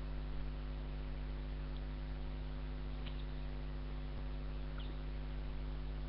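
Steady electrical hum picked up by a computer or webcam microphone, with a few faint clicks in the middle.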